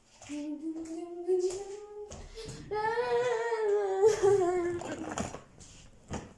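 A girl singing long, wavering drawn-out notes without words, loudest in a held note from about three to five seconds in; a few light knocks mixed in.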